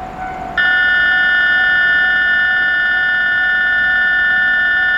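Railway platform warning buzzer: a loud, steady electronic tone with several fixed pitches. It starts about half a second in and holds without any change in pitch.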